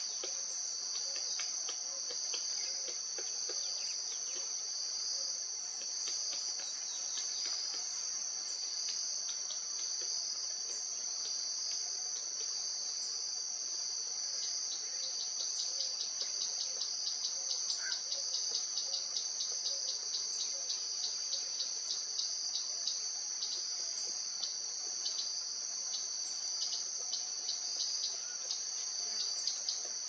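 Steady, high-pitched drone of insects running throughout. From about halfway, a run of quick, light ticks sounds over it.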